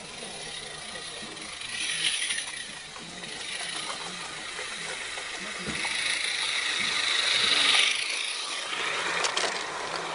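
Small-scale garden railway train running on its track: wheels and wagons clicking and rattling. A hissing rises as the small locomotive approaches and is loudest a little before eight seconds in.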